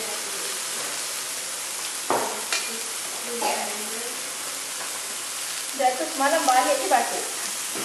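Meat sizzling on an electric grill plate around a pot of simmering soup, a steady hiss, while a ladle stirs in the metal pot with two sharp clinks a little after two seconds. A person's voice sounds briefly about six seconds in.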